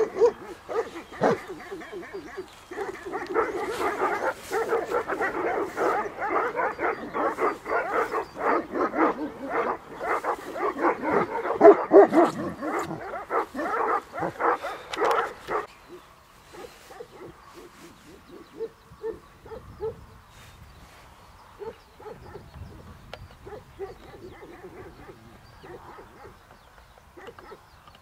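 Tibetan Mastiffs barking in a fast, unbroken run for about twelve seconds, stopping suddenly about halfway through; after that only faint, scattered yips.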